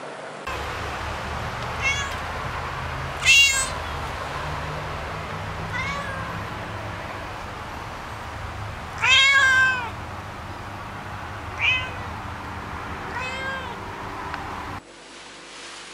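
Black-and-white kitten meowing: six separate high calls a couple of seconds apart, the longest and loudest about nine seconds in, over a steady low background hum and hiss that cuts off near the end.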